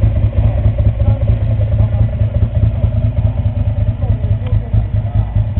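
Ducati 400 Supersport's V-twin engine idling with a steady, rapid pulsing beat.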